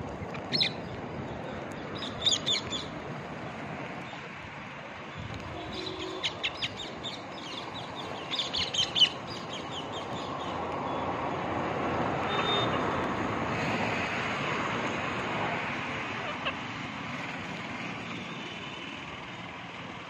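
Rose-ringed parakeets giving clusters of short, shrill calls, mostly in the first half. From about ten seconds in, the noise of a passing vehicle swells and fades.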